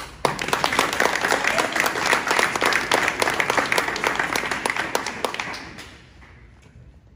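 A group of people applauding, with dense, fast hand clapping close by. It starts just after the opening, holds for about five seconds and then dies away.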